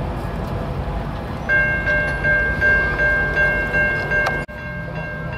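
Railroad grade-crossing warning bell starting to ring about a second and a half in, a steady ringing tone pulsing a few times a second as the crossing gates come down over a low background rumble. The sound drops out sharply for an instant about four and a half seconds in, then the bell carries on.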